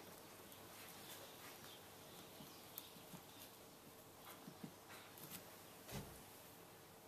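Near silence with faint scattered taps and rubbing from a gloved hand greasing a car battery terminal, and a soft knock about six seconds in.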